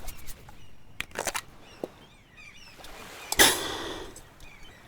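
Asthma inhaler being used: a few clicks about a second in, then one short spray hiss about three and a half seconds in, the second puff given during an asthma attack the inhaler is not relieving. Faint bird chirps in the background.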